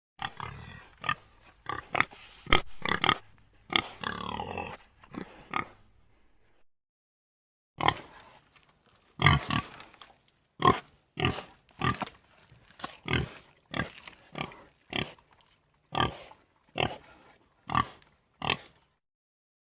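Desert warthog grunting: an irregular run of short grunts with a longer rasping one among them, then about a second's pause, then evenly spaced short grunts at roughly one to two a second.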